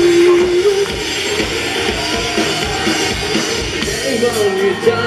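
Live rock band playing an instrumental passage: drum kit, bass and a melodic guitar or synth line, with no vocals.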